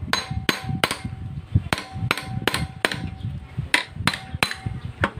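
Steel hammer striking a socket extension held against a Suzuki Smash 115 engine crankcase: about ten sharp metal taps in short runs of two to four, several with a brief ring.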